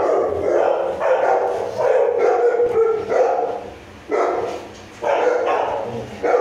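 Bullmastiff puppy barking repeatedly in a string of short barks, with a brief lull about four seconds in.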